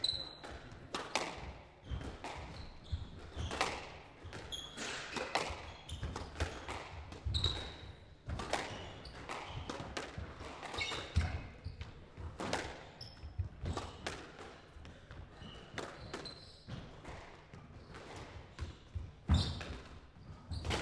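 Squash rally: the ball struck by rackets and hitting the walls in a long, irregular run of sharp knocks, with short squeaks of court shoes on the wooden floor between hits.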